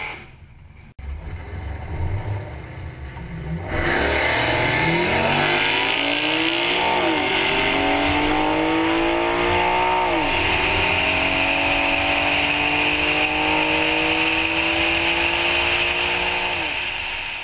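Infiniti G37S's V6 engine making a full-throttle drag strip pass. After a few seconds of lower running at the line it launches hard, with a rising note broken by two upshifts of the automatic gearbox, then a long climb before the engine drops away near the end. Heavy wind rush on the hood-mounted camera is heard under it.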